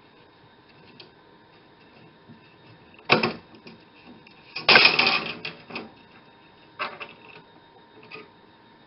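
Steel band saw blade ends being handled and set against a steel jig plate: a sharp metallic click about three seconds in, then a louder metallic rattle lasting under a second, followed by a few lighter clicks.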